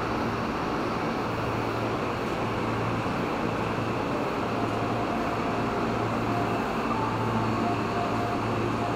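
Steady running noise heard from inside a moving commuter train, with a low hum that swells and fades every second or so.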